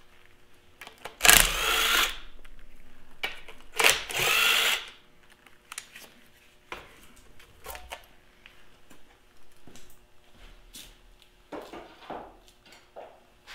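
Cordless power driver spinning bolts out of a Farmall Super M engine block's side cover plate in two short runs, about a second and four seconds in. Scattered clicks and knocks follow as the bolts and cover plate are handled.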